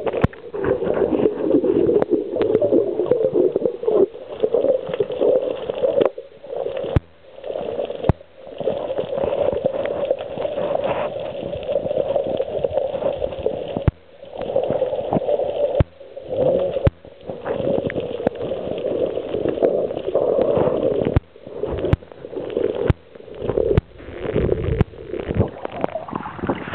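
Muffled rushing and gurgling water, as picked up by a camera underwater, broken by many short gaps.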